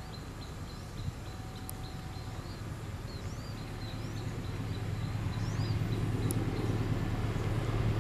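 Low engine rumble of an approaching diesel train, growing steadily louder, with birds chirping over it.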